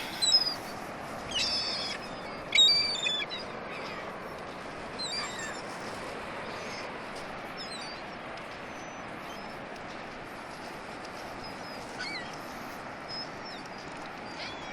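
Gulls calling: a run of short, high calls in the first few seconds, the loudest about two and a half seconds in, then only a few fainter calls, over a steady background rush.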